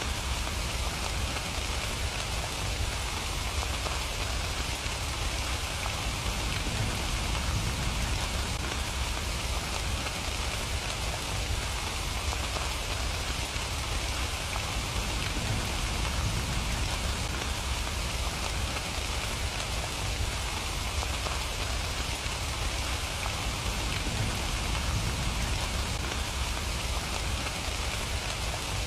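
Steady rain falling, a continuous even patter of drops on surfaces.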